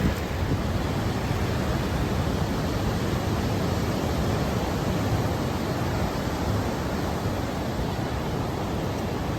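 Ocean surf breaking on a beach, heard as a steady, even wash of noise with no single wave standing out.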